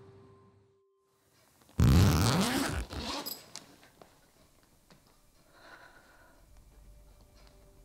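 A sudden loud rushing noise a little under two seconds in, lasting about a second with a rising pitch inside it. It is followed by faint scattered clicks of handling.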